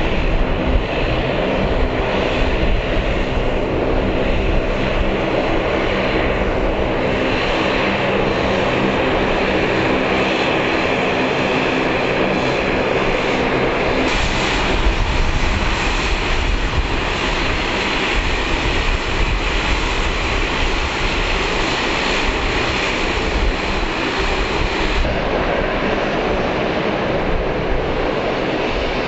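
Bombardier Dash 8 Q400 turboprop taxiing, its engines and propellers giving a steady drone with several held tones. About halfway through, the sound switches abruptly to the broader, hissier rush of a small rear-engined twin jet on the runway.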